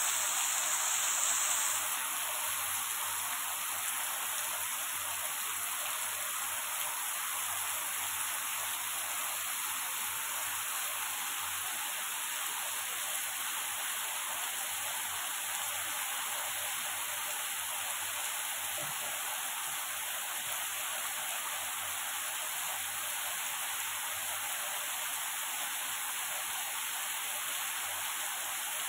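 Heavy rain pouring onto wet pavement and standing water, a steady hiss of splashing drops, a little louder in the first couple of seconds.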